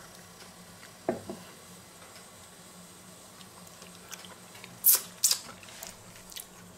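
A glass jar set down on a wooden cutting board with a short knock about a second in, then two sharp clicks and a few lighter ones near the end as a metal jar lid is handled, over a faint low hum.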